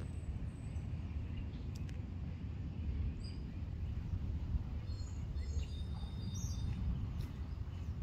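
Steady low outdoor rumble with faint high bird chirps, a few of them clustered a little past the middle.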